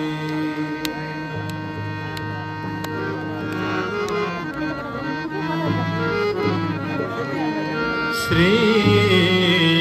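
Devotional aarti music: sustained held notes over tabla, with a singing voice coming in louder near the end.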